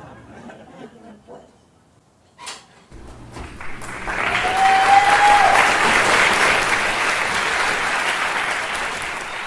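Sitcom-style studio audience applause with a whistle, greeting a character's entrance. It starts about three seconds in, swells to its loudest a couple of seconds later, then keeps on steadily. A single sharp click comes just before it.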